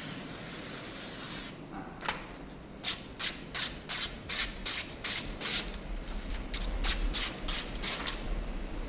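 A knife blade makes a run of short rasping strokes, about three a second, beginning about two seconds in.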